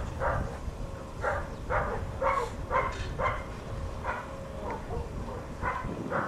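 A dog barking in short, high yelps, several in a quick irregular run with a pause in the middle.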